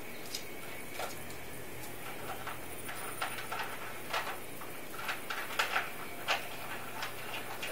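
Yorkshire terrier puppy nosing and pushing a plastic bowl of dry kibble across a hard floor: irregular clicks and rattles of kibble and bowl, sparse at first and coming thicker from about three seconds in.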